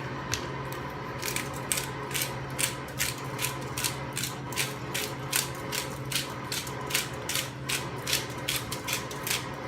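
Italian seasoning grinder being twisted, giving a steady run of ratcheting clicks at about three a second.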